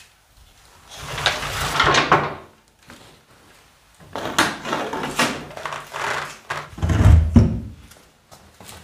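Metal scooter parts being handled and moved: scraping and clanking of the engine and frame, with a heavy low thump about seven seconds in.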